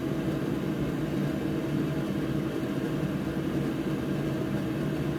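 Steady whirring hum of an electric fan running, with a few low steady tones and no change throughout.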